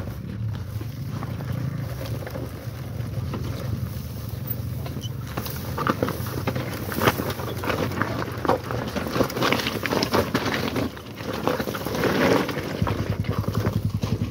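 An enduro dirt bike rolling slowly down a steep rocky slope, its tyres crunching and knocking over loose stones with clunks from the chassis, over the steady low hum of a motorcycle engine idling. Near the end the engine note gets louder and more pulsing.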